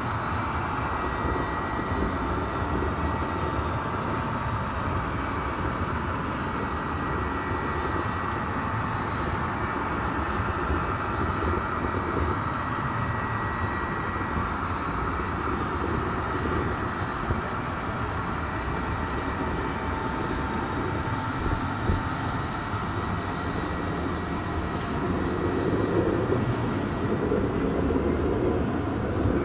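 Train running steadily: a continuous rumble of rail noise with a faint, steady high whine over it.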